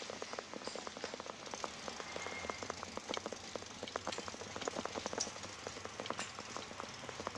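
Rain falling: many separate drops landing irregularly, several a second. A faint low hum sits under it from about two seconds in until near the end.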